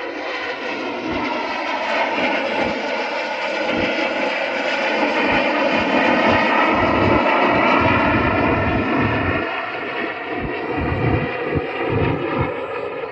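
Display aircraft flying past overhead. The engine sound swells to its loudest about halfway through, then fades a little toward the end.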